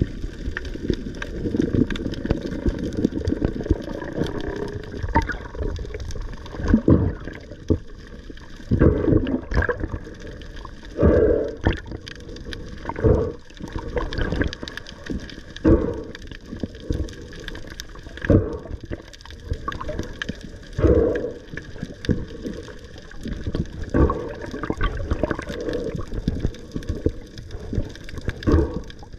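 Muffled water movement heard through an underwater camera's housing: a continuous low rushing and gurgling, with a stronger surge every two to three seconds from about a quarter of the way in.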